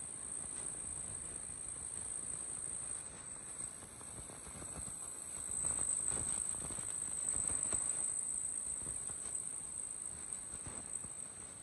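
Steady high-pitched drone of insects in the field, with a rougher noise underneath that swells about halfway through.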